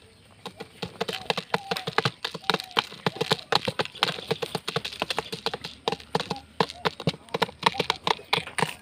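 Pigeons pecking lentils out of a plastic jar: rapid, irregular sharp taps of beaks striking the plastic and the lentils.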